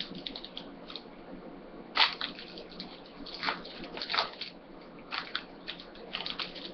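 Trading cards being handled and flipped through by hand: irregular soft rustles, scrapes and clicks of card stock, the sharpest about two seconds in.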